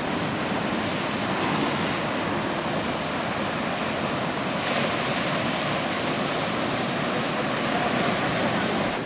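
Surf breaking on a sandy beach: a steady rush of waves, swelling slightly a few times.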